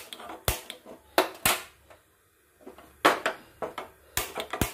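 Oil and ghee heating in an iron kadai on a gas stove, crackling with scattered, irregular sharp pops.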